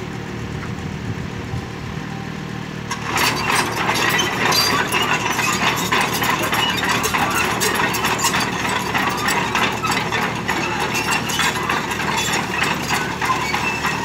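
Mini excavator's diesel engine running at a steady idle. About three seconds in it gets louder and the machine travels on its crawler tracks, with a busy, continuous mechanical clatter.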